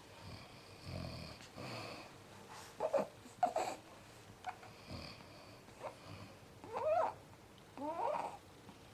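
Sleepers snoring: soft rasping breaths early on, then several short squeaky, wheezing sounds that slide up and down in pitch between breaths.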